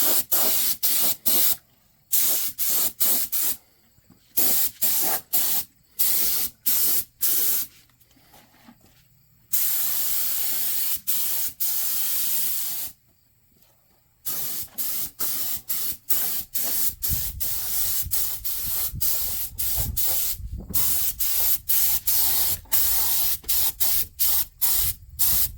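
Paint spray gun spraying coating in many short trigger pulls, each a burst of hiss, with one longer pull of about three seconds near the middle.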